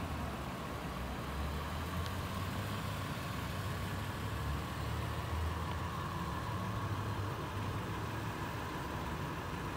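Toyota 4Runner's 4.0-litre V6 idling with a steady low hum.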